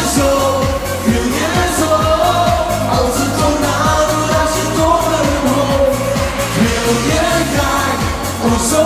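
Dutch-language pop song played live over a PA system: a steady dance beat with a male singer's voice on top.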